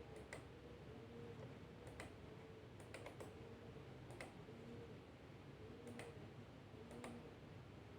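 Near-silent room tone with faint, irregular clicks, about six of them spread unevenly.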